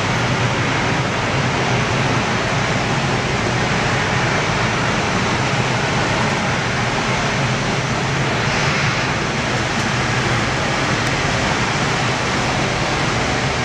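AV-8B Harrier's Pegasus vectored-thrust turbofan running steadily as the jet hovers beside the ship for a vertical landing: an even, unbroken jet noise.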